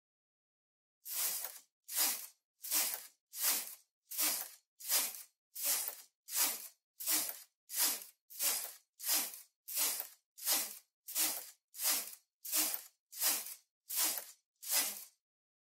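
Brother KH-811 knitting machine carriage pushed back and forth across the needle bed, knitting row after row: a quick swish with each pass, about one every 0.7 seconds, starting about a second in.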